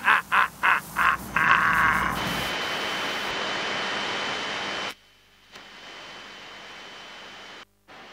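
Static noise from a television-style glitch effect: a few short choppy stuttering bursts, then a steady hiss with a thin high whine that cuts off about five seconds in, followed by fainter static that starts and stops abruptly.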